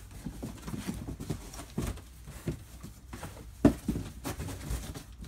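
Corrugated cardboard box being flexed and handled, bent back the other way: scattered knocks and scuffs of the cardboard, with one louder knock a little after halfway.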